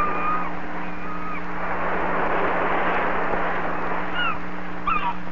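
Surf washing over rocks with gulls calling above it: a long held call at the start, another about a second in, and several short falling calls near the end, over a steady low hum.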